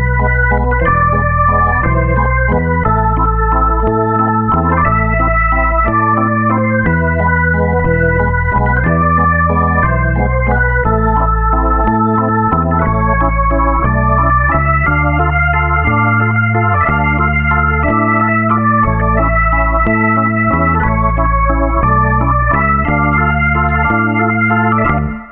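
Background music: an organ-like keyboard tune with a strong bass line, the chords changing about every second, stopping abruptly at the very end.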